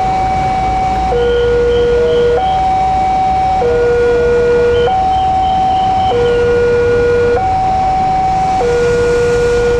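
Railway level-crossing warning alarm sounding: an electronic two-tone signal that alternates steadily between a high and a low tone, each held a little over a second, over a low traffic rumble.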